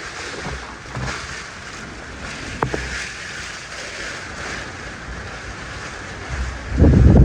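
Hurricane wind rushing steadily, then gusting hard about seven seconds in, buffeting the microphone with a low rumble.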